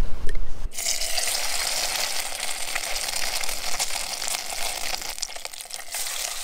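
Atlantic mackerel fillet frying in hot vegetable oil in a small camp-stove pot: a dense, steady sizzle full of small crackles and spits that starts suddenly about a second in. Before that, low wind rumble on the microphone.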